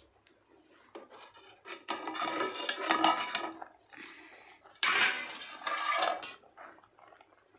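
Flat metal lid clattering and clinking against a pan of simmering curry as it is lifted off and set aside, in two bursts, about two seconds in and again about five seconds in.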